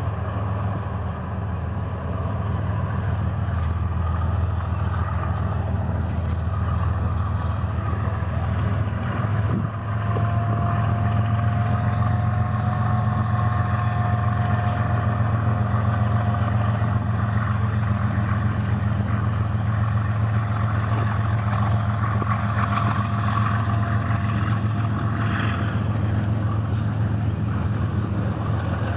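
CN freight train rumbling steadily as it passes. A faint thin steady tone sits over the rumble from about ten seconds in until near the end.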